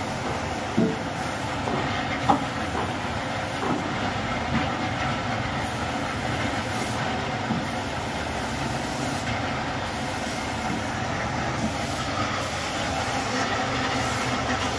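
A bench-top workshop machine's motor running steadily while a cricket bat blade is worked against it, giving a continuous mechanical noise. Two sharp wooden knocks come about a second in and a little after two seconds.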